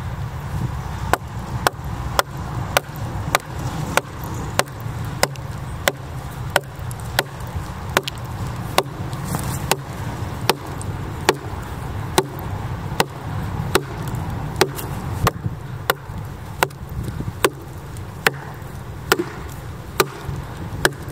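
A wooden wedge being driven into a split in a red oak log by steady, repeated blows: sharp wooden knocks about one and a half a second, widening the split. A steady low rumble runs underneath.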